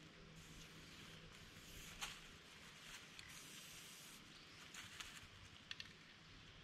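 Near silence: faint outdoor background with a few brief, soft hisses or clicks.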